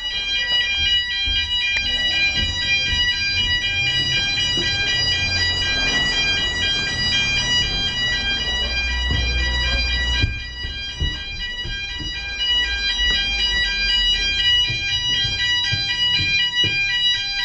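Fire alarm sounding without a break: a loud, high electronic tone with several overtones, pulsing rapidly, over a low rumble.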